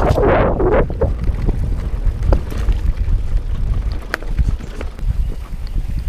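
Wind buffeting the microphone with a steady low rumble while a Specialized Rockhopper Comp 29 mountain bike rolls over grassy singletrack, with scattered light clicks and rattles from the bike over bumps. A rushing hiss at the start fades out about a second in.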